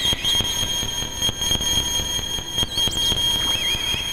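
Glitch Storm DIY Arduino chiptune synthesizers droning a steady high, alarm-like tone over a rough, noisy low end. About three seconds in, chirping glides dive and rise in pitch as a knob is turned.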